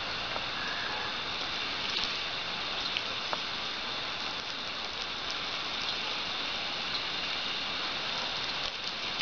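Steady hiss and patter of a garden hose's water stream splashing onto grass, with a few faint ticks.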